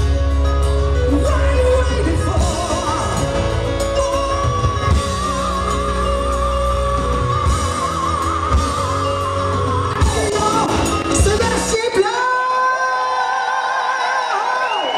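Rock band playing live in a hall, with drums, bass and guitars under a singer who holds one long wavering note. About twelve seconds in the band stops and the crowd yells and cheers.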